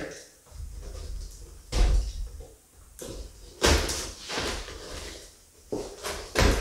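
A package of sanding discs being handled and opened by hand: several short bursts of rustling packaging and knocks, with quiet gaps between them.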